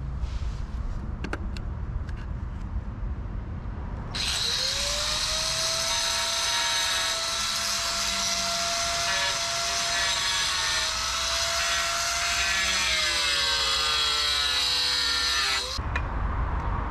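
Handheld power tool cutting a chrysotile-cement sheet. The motor spins up about four seconds in and cuts with a steady whine and loud gritty hiss for about twelve seconds, its pitch wavering and sagging under load near the end before it stops abruptly.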